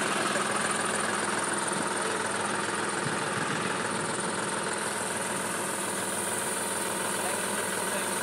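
John Deere 5310 tractor's three-cylinder diesel engine running steadily while it drives the front loader's hydraulics to raise the boom.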